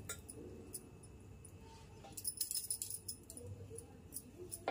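Faint clinks and scrapes of a metal fork working in a small clay diya on a brass plate, with a brief flurry of light clicks about halfway through.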